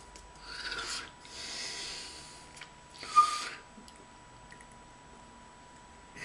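Three short rushes of hissing noise from a person's breaths and hands rubbing as they gesture, the last and loudest a sharp puff about three seconds in. A faint steady tone lies underneath.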